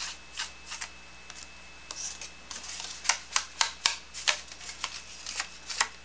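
A white ink pad rubbed in short, quick strokes along the edges of a folded paper insert, with paper rustling as it is turned. The strokes come faster and closer together in the second half.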